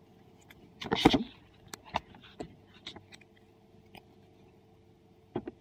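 Scattered light clicks and scrapes from fingers handling a small printed circuit board, with one louder brief rustle about a second in and a quick pair of clicks near the end.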